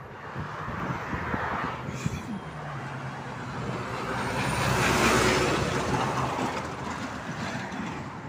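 A Mercedes-Benz hooklift truck towing an empty trailer drives past. Its diesel engine hum and tyre noise build as it approaches, are loudest about five seconds in as it passes, then fade.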